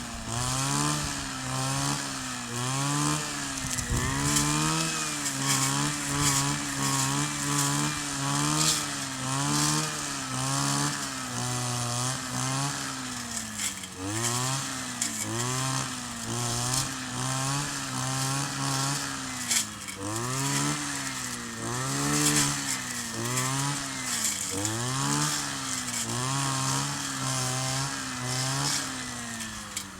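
Kioritz 260 two-stroke brush cutter engine running, its pitch rising and falling about once a second as the throttle and load change.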